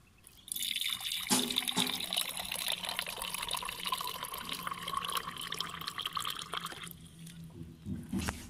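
Water running from a water cooler's push tap into a steel tumbler, starting about half a second in and stopping about seven seconds in. A brief knock near the end.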